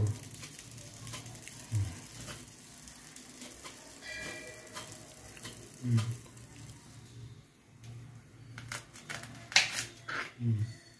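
Serrated knife scraping and tapping on a plastic chopping board as the spines are scraped off wild okra pods: scattered short scrapes and clicks, thickest near the end. A brief ringing tone sounds about four seconds in.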